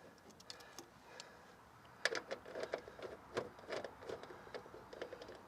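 Irregular metallic clicking and rattling of a hand wrench working a tight bolt loose on a car door's door checker, starting about two seconds in.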